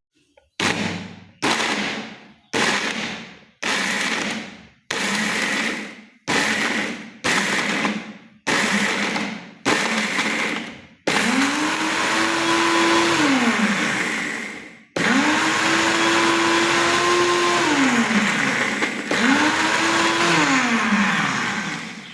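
Small electric grinder pulverising pieces of charcoal into powder, the charcoal rattling against the blades. It is run in about ten short pulses, then in three longer runs, each with the motor spinning up, holding and winding down.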